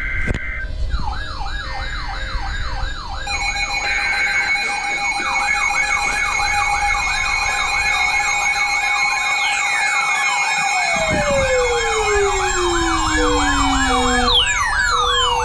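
Electronic siren sounds layered together: a fast yelp-like sweep repeating about three times a second, with steady high tones over it. A long falling whistle about two-thirds of the way in and quick falling whistles near the end.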